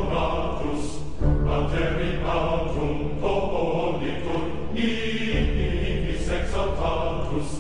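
Background music: slow choir-like chanting over a steady low bass drone.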